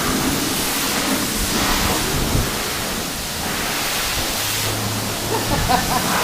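Self-serve car wash high-pressure wand spraying soapy water onto a car, a steady hiss of spray.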